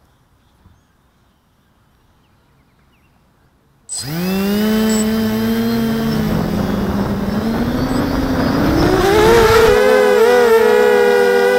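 Near silence, then about four seconds in the brushless motors of a 250-size FPV racing quadcopter spin up abruptly into a steady whine of several tones, heard from the camera on the quadcopter itself. From about eight seconds the pitch climbs and the motor tones weave up and down as the throttle is raised for takeoff.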